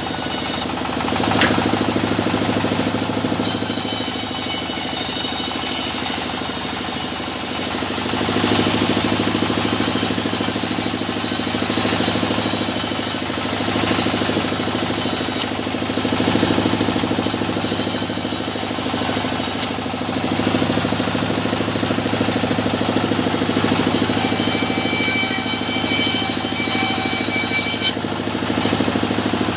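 Sawmill machinery running steadily with a continuous low hum, while mahogany is cut for furniture stock. A few brief, harsher noisy stretches come through on top of it.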